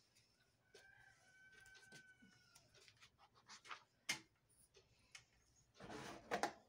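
A paper page of a thick, worn Quran being turned, giving a short rustle near the end. Before that, a faint drawn-out animal call lasts about two seconds, with a few soft clicks.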